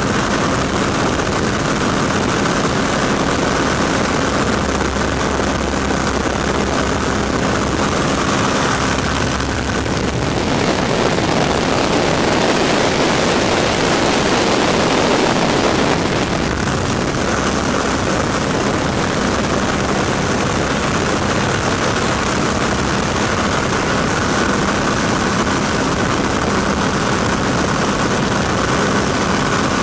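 De Havilland Tiger Moth's Gipsy Major four-cylinder engine and propeller running steadily in flight, heard from the open cockpit with the slipstream rushing past. From about ten to sixteen seconds in, the wind noise swells and covers the engine, then the engine tone comes back through.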